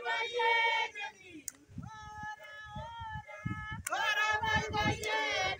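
A group of voices singing in call and response: many voices together at first, one voice holding long notes in the middle, then the group again about four seconds in. Low thumps sound underneath.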